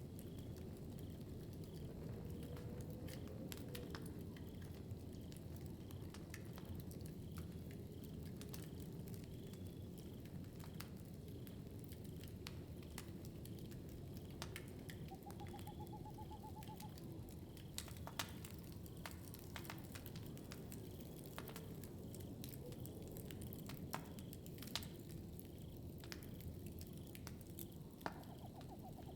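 Wood fire in a fireplace crackling: a steady low rustle with scattered sharp pops and snaps, a few louder ones late on.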